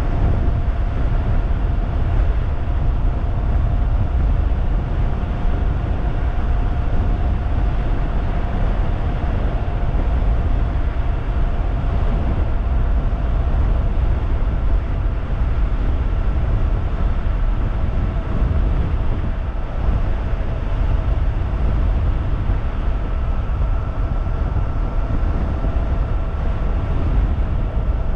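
Homemade 3000-watt electric bike at high speed: heavy wind rush and road rumble, with a steady high whine from the electric motor that sinks slightly in pitch as the bike eases off a little.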